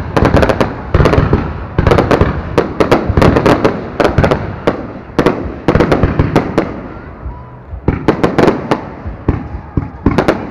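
Aerial fireworks bursting in rapid volleys of sharp bangs and crackles, easing off briefly about seven seconds in before picking up again.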